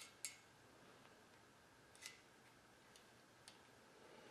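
Near silence broken by about five faint, sharp clicks and ticks, the strongest just after the start, from an inspection camera and its cable being handled as the cable is fed into an engine block's oil gallery.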